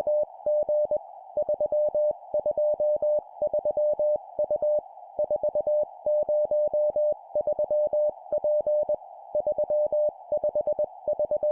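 Morse code (CW) sent at 20 words per minute as a single-pitched beep keyed on and off in dots and dashes, forming four-character groups of three numbers and a letter, over a soft steady hiss.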